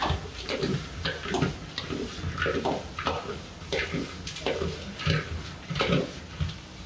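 Food frying and sizzling in a pan while a spatula stirs and tosses it, scraping the pan about twice a second.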